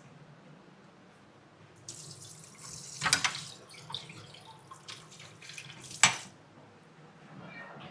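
Water running from a kitchen tap for about four seconds, with a clatter partway through and a sharp knock, the loudest sound, just as the water stops.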